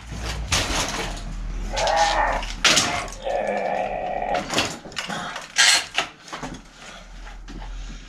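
A Gazelle Dutch city bike being lifted and swung into a workshop repair stand: clattering and knocking of the frame, mudguards and stand clamp. Two drawn-out creaking tones come about two seconds in and again at three and a half to four and a half seconds.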